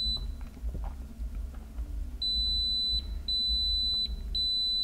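Kaiweets KM601 multimeter's continuity beeper sounding a steady high beep as the probes touch the legs of a MOSFET: one beep ending at the start, then three beeps of under a second each from about two seconds in. The beeping signals a short between the pins, a dead, shorted MOSFET.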